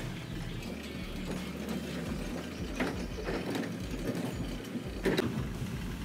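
Garage door opener running as the sectional garage door rolls down in its tracks, with a steady mechanical hum and a couple of sharp clanks.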